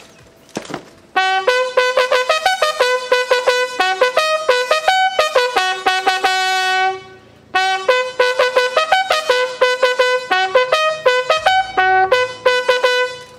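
Bugle sounding a salute call: two fast phrases of quick repeated notes on three or four pitches, with a short break between them about halfway through.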